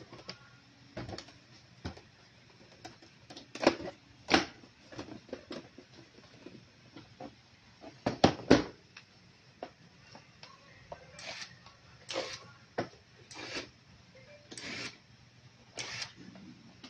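Plastic projector housing being handled and fitted together on a workbench: scattered knocks and clicks, the loudest a few seconds in and around the middle, then a series of short scrapes in the second half.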